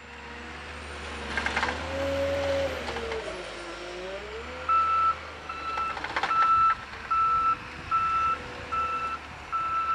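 PistenBully PB 260 D snow groomer's diesel engine running, rising and falling in pitch a couple of seconds in. From about halfway its backup alarm beeps steadily, about one beep every 0.8 seconds.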